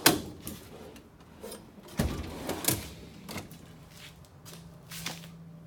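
Metal tool chest drawers sliding shut and open on their slides, with sharp clacks as they close: one at the start, then two more about two and three seconds in.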